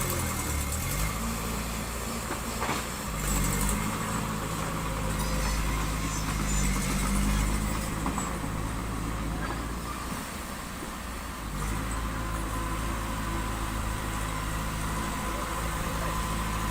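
Diesel engine of heavy construction machinery running under load, its speed rising and falling several times, easing off briefly about ten seconds in.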